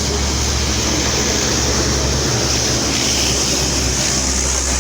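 Steady din of vehicle engines running, with a low, even hum under a constant hiss of wind on the microphone.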